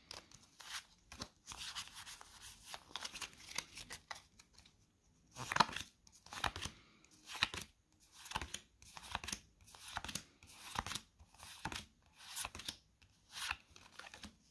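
Pokémon trading cards being handled: rustling for the first few seconds, then from about five seconds in a short swish roughly every 0.7 s as cards are slid one by one off the stack.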